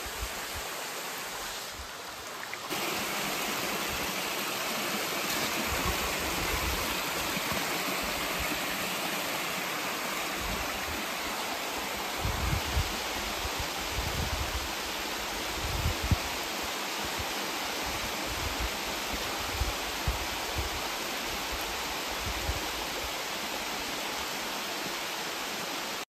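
Tall waterfall cascading over rock into its pool: a steady, even rush of falling water, a little louder from about three seconds in, with occasional low rumbles under it.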